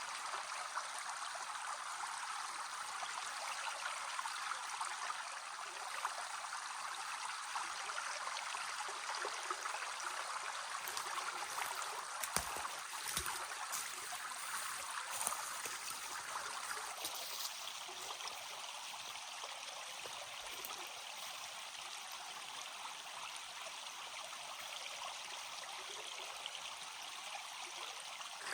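Stream running steadily, with a couple of brief knocks about halfway through; the water sound shifts a little past the middle.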